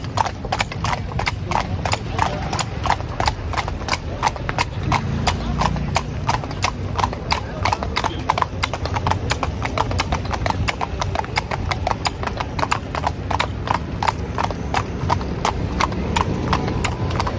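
A pair of carriage horses' hooves clip-clopping on an asphalt street in a steady, even rhythm of about four strikes a second.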